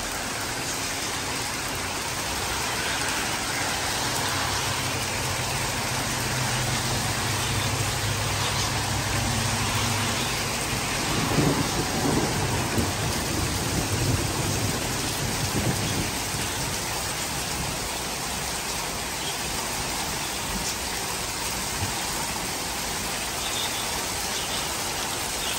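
Heavy rain pouring steadily, with a low hum and then a rumble underneath through the middle for several seconds.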